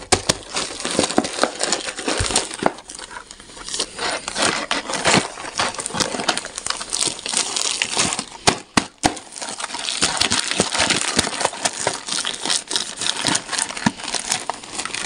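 A cardboard box of chocolate bars being handled and turned over by gloved hands, rubbing against plastic candy wrappers: irregular crinkling with many small clicks and taps.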